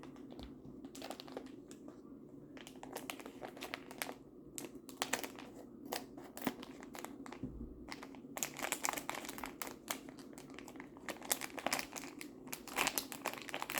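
Crinkly packaging being handled and torn open: irregular crackling and rustling, sparse at first and much busier from about halfway through.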